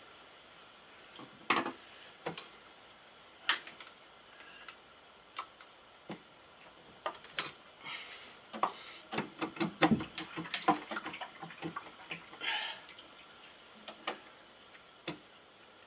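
Irregular clicks and knocks of metal hand tools working on motorcycle engine parts, with a quick run of clicks about nine to eleven seconds in.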